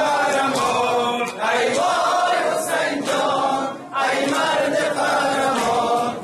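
A group of men chanting a Shia mourning lament (noha) together, in sung phrases a couple of seconds long with brief breaks between them.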